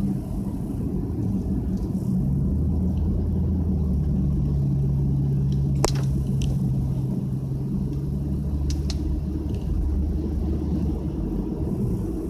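Cabin noise of a 2004 Nissan Y50 Fuga 350GT on a rain-soaked road: a steady low drone of its 3.5-litre V6 and the running gear. A few brief clicks sound over it, the sharpest about six seconds in.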